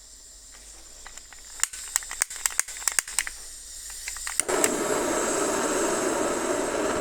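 Handheld gas torch: a run of sharp igniter clicks, then about four and a half seconds in the flame catches and burns with a loud, steady hiss.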